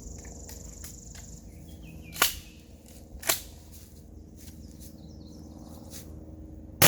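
Two sharp knocks about a second apart, then a single loud gunshot near the end whose report trails off for about a second.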